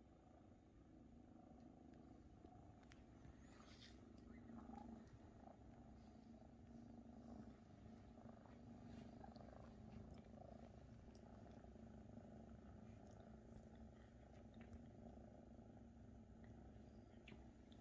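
Faint, steady purring of Maine Coon kittens nursing from their mother, swelling and fading with each breath, with scattered soft clicks.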